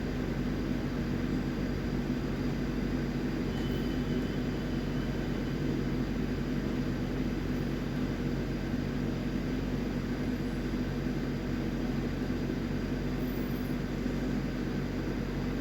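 Steady low mechanical drone with a hum, unchanging throughout, like a fan or air-conditioning unit running in the room.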